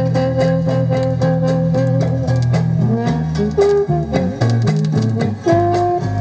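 Instrumental bossa nova: guitar and bass under a melody line that holds one long note for about two seconds, then moves through shorter notes, over light, steady percussion.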